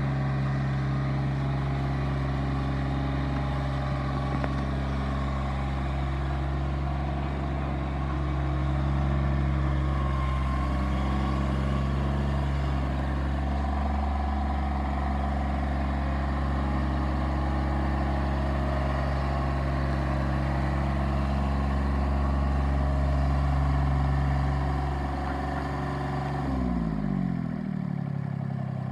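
Diesel engine of a Mahindra eMax 25 compact tractor-backhoe running at a steady speed. Near the end the engine speed drops sharply, then starts to pick up again.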